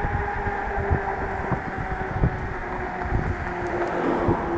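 Electric bike's 1000 W hub motor and tyres humming on the road, a steady tone that slides slowly lower as the bike slows down. Wind buffets the microphone throughout.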